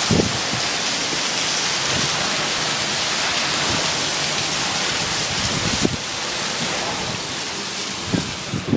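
Heavy rain pouring down in a thunderstorm, a loud steady hiss that eases slightly about six seconds in, with a few short low thumps near the start and near the end.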